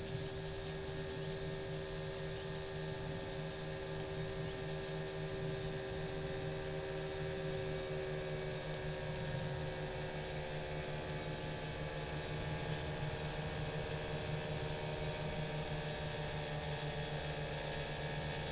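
Gemini Hummingbird 103 ultralight's engines droning steadily in the distance as it approaches to land, over a steady high-pitched hiss.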